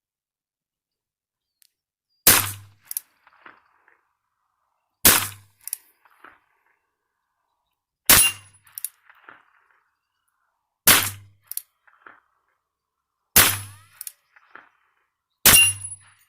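Six shots from a Ruger Wrangler .22 LR single-action revolver, fired slowly about every two and a half to three seconds, each followed by fainter sharp knocks.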